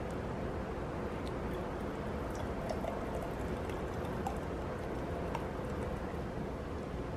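Thick blended smoothie poured from a blender jar into a glass, with faint soft wet ticks and plops over a steady background noise.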